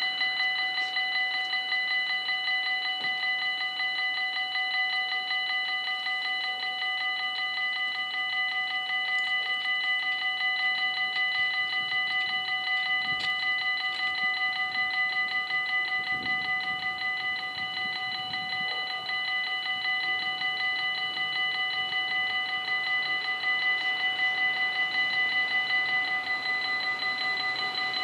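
Electric warning bells of a Dutch automatic half-barrier level crossing ringing continuously, several bells together, in a fast, even clang. This is the warning signal that a train is approaching and the barriers are down.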